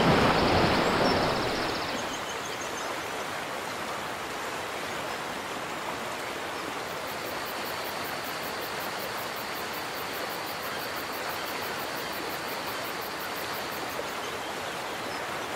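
Rushing water, a sea sound effect: loud at first, easing off over about two seconds into a steady, even rush.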